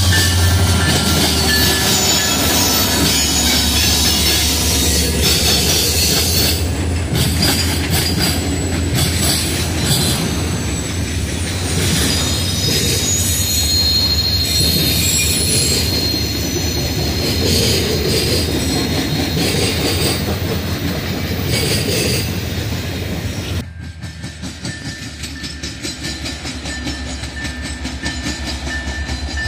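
Freight train passing close by: a steady rumble and clatter of steel wheels on rail under locomotives and autorack cars, with high-pitched wheel squeal. About 23 seconds in, the sound cuts abruptly to a quieter train approaching, its diesel locomotives running.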